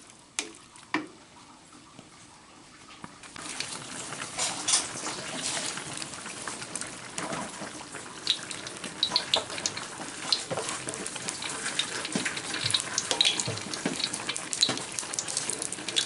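Coconut-milk broth with cassava leaves boiling in a large aluminium pan, bubbling and popping densely from about three seconds in. Two sharp knocks come in the first second.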